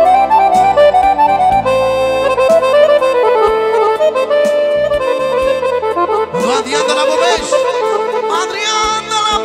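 Button accordion playing a lively folk melody over held bass notes from the left-hand buttons. About six seconds in, a voice comes in over the accordion.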